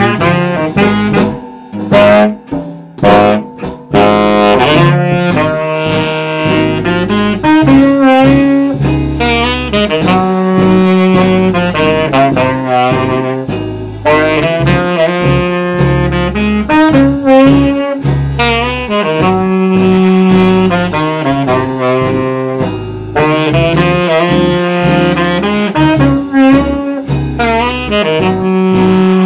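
Saxophone and electric bass guitar playing jazz live: a few short, sharp stabbed notes in the first few seconds, then the saxophone plays a flowing melody over the bass line.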